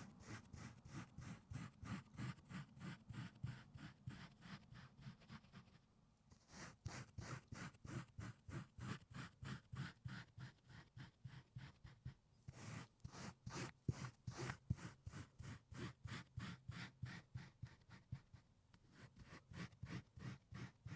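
Pet hair remover tool raked in quick repeated strokes across car carpet, a quiet scratching about three times a second with two short breaks.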